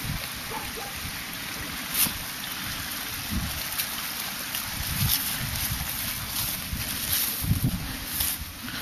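Rustling and crackling of dry leaves and twigs as someone walks through woodland undergrowth with a dog, with soft footstep thuds and wind buffeting the microphone.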